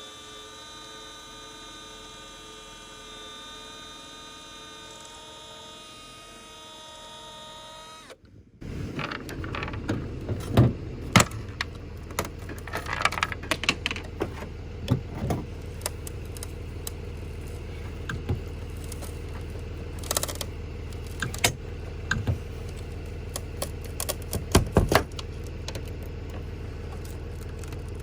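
Scattered metallic clicks, taps and knocks from hand tools working a part loose from a 90s Chevy pickup, over a steady low hum. It is preceded by about eight seconds of a steady whine made of several held tones, which cuts off abruptly.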